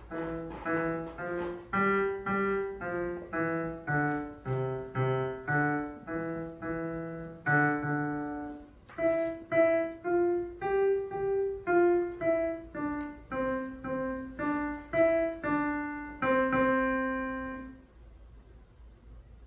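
Piano played note by note in a short, simple piece at about two to three notes a second, with low notes under the tune in the first half. It ends about eighteen seconds in on a held final note that fades away.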